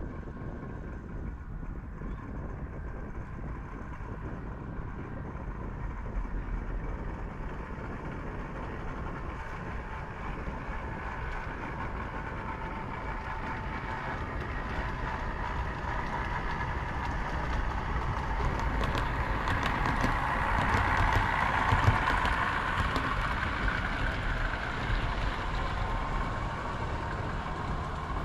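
Model train running along the track, growing louder and passing closest about two-thirds of the way through, with rapid clicks from the wheels over the rail joints, then fading a little.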